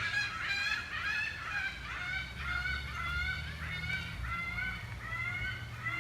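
A flock of geese honking: many short, rising calls in quick succession, overlapping one another throughout.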